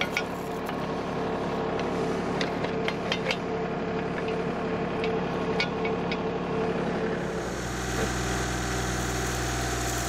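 Kubota L3901 tractor's diesel engine running steadily while a few sharp metal clinks sound as the trencher bucket is pinned onto the backhoe's quick-attach coupler. About seven seconds in, the engine sound grows deeper and fuller.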